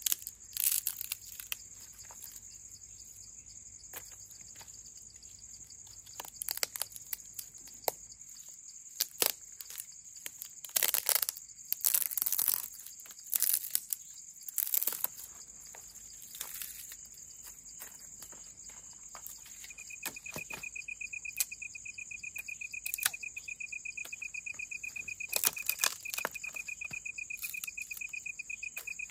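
Crickets trilling steadily in a high, even drone, joined about two-thirds of the way in by a lower, evenly pulsing cricket trill. Scattered close crunches and rustles break in now and then.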